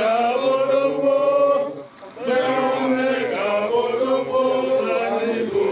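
A group of men chanting in unison in long held notes, one voice carried by a microphone, with a short pause about two seconds in.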